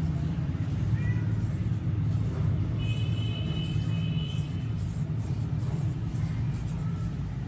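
Steady low outdoor rumble with no clear rhythm, with a faint high steady tone lasting about a second and a half, about three seconds in.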